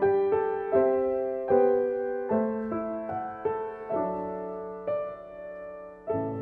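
Gentle piano music: single notes and chords struck at an unhurried pace, each left to ring and fade before the next.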